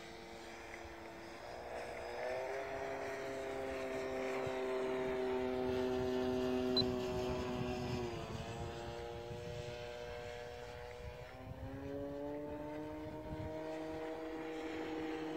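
Electric radio-controlled model airplane (GeeBee R3, 1.40 m span, electric motor on a 4S battery) flying overhead with a steady propeller-and-motor whine. The whine steps up in pitch about two seconds in and drops sharply near eight seconds, then climbs again near twelve seconds. It grows louder toward the middle.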